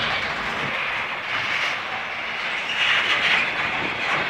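Container freight train wagons rolling past, wheels running on the rails with a steady rushing, hissing noise that swells briefly about three seconds in.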